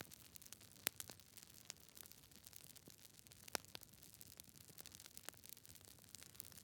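Fire crackling softly: irregular sharp pops and ticks over a faint hiss, with two louder pops about a second in and about three and a half seconds in.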